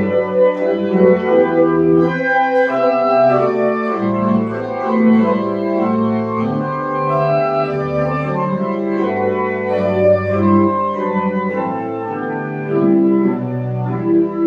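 Church pipe organ playing the closing voluntary of the service: full, sustained chords that change about every half-second to a second over a moving bass line.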